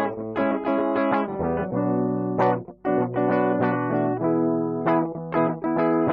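Guitar playing an instrumental break of a song, a run of plucked notes and chords with sharp attacks.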